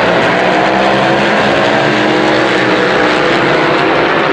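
Several racing superbikes running at high revs around the circuit, a few engine notes overlapping and shifting in pitch as they accelerate and change gear.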